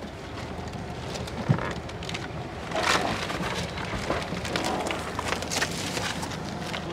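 Shuffling, crinkling plastic and scattered knocks as people clamber out through an SUV's open rear tailgate over plastic-wrapped jump seats, against a steady rushing background.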